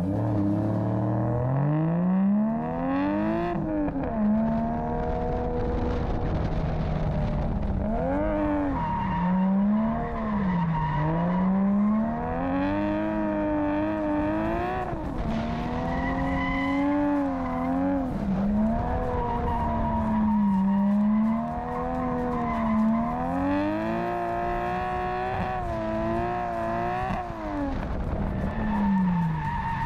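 A drift car's engine revving hard up and down over and over as it drifts around the track, its pitch rising and falling every second or two.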